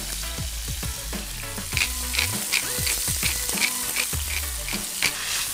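Chicken breast pieces sizzling as they sear undisturbed in hot sunflower oil in a nonstick frying pan, left to brown. From about two seconds in, a run of short crisp ticks, about four a second, as a pepper mill is ground over the pan.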